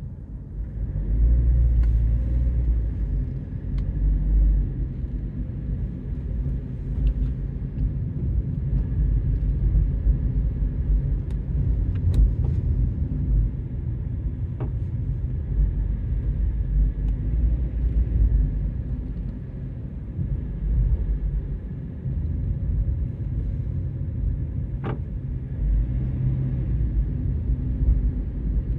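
Low rumble of a car driving, road and engine noise picked up inside the cabin by a dashcam microphone, with a few short clicks scattered through it.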